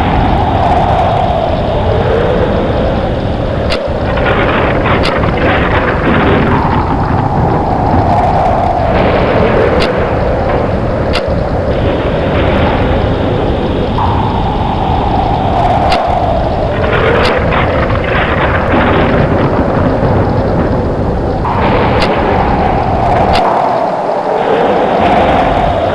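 Storm soundscape: wind howling in gusts that jump up in pitch and slowly fall away, over a steady heavy rumble, with sharp cracks coming in pairs now and then.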